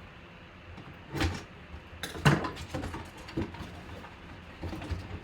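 Boxes and a mini football helmet being handled and unboxed: a series of knocks, scrapes and clatters, the loudest a little over two seconds in.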